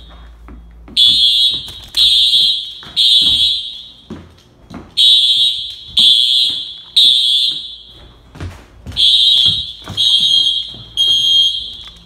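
Dormitory fire alarm sounding a high-pitched tone in groups of three beeps with a pause between groups, the temporal-three evacuation signal. Faint thumps and rustling from the phone being handled and hurried footsteps run between the beeps.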